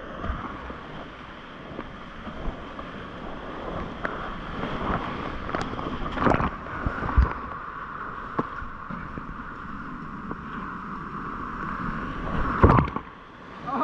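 Whitewater rapids rushing steadily around a kayak, picked up close by a helmet-mounted camera, broken now and then by sharp splashes and knocks of paddle strokes and waves. The loudest splash comes about a second before the end.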